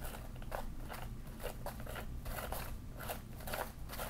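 Aircraft life vest being handled: the coated fabric crinkling and its plastic inflation handles clicking, a run of irregular small crackles and clicks.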